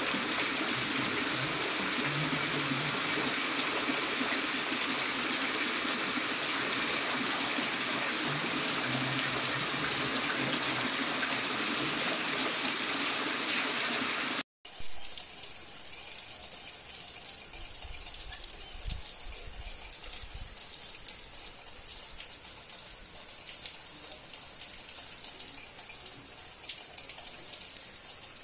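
Heavy rain pouring steadily as an even hiss. About halfway it breaks off and another rain recording starts, quieter and crackly with nearby drop patter and a few low rumbles.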